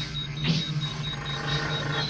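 Live electronic improvised music: a low electronic drone chopped into rapid pulses, with a sudden falling sweep about half a second in.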